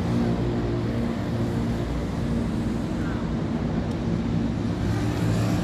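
Steady motor-vehicle traffic noise from a highway, with a low engine hum running under it.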